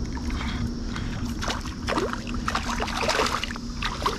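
Hooked smallmouth bass splashing and thrashing at the water's surface in a series of irregular splashes as it is reeled in close, trying to throw the topwater lure, over a low rush of water.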